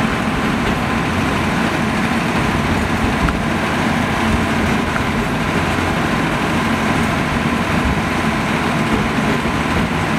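Narrow-gauge forest railway train running, heard from on board: a steady rumble of its small diesel locomotive and the wheels on the rails, with a faint low hum throughout.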